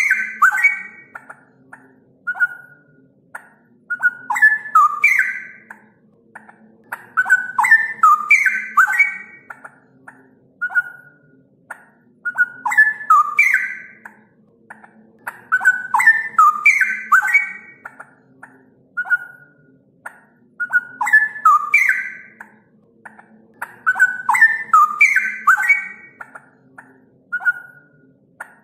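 Straw-headed bulbul (cucak rowo) singing: rich, bubbling song phrases about a second long, repeated roughly every four seconds, each followed by a short single note.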